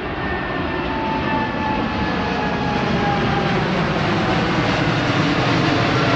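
Boeing 777's twin jet engines at high thrust on departure: a loud, steady roar that grows louder, with faint whining tones slowly falling in pitch.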